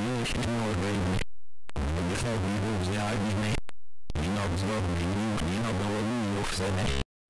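Loud, densely layered electronic music with a distorted, clashing sound. It is chopped into segments, cutting to dead silence for about half a second three times: at about one second, around three and a half seconds, and just before the end.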